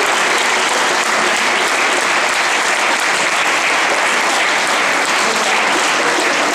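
Applause from a hall full of schoolchildren and teachers: many hands clapping at once, dense and steady.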